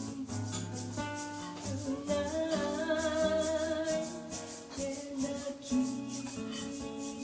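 Live acoustic band music: guitar chords with a shaker keeping an even rhythm, and a held melody note in the middle.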